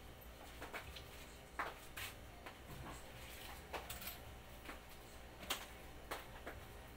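Small plastic-wrapped goods being sorted by hand in a plastic tub: scattered light crinkles and clicks, a few sharper ones, over a low steady hum.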